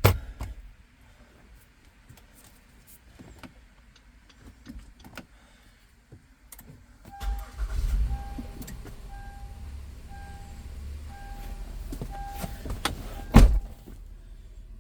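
2017 Honda Pilot's 3.5-litre V6 starting about seven seconds in and settling into a steady idle, showing the new start/stop switch works. A warning chime beeps at an even pace about ten times while it starts, and one sharp knock sounds near the end.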